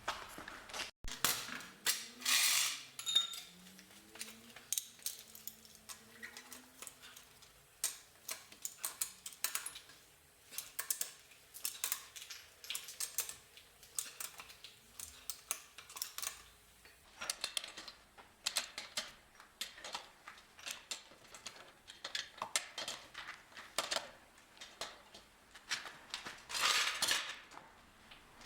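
Small metallic clicks and clinks of wheel bolts and hand tools as a car wheel is being bolted on, coming irregularly and sometimes in quick runs, with a longer rasping burst about two seconds in and another near the end.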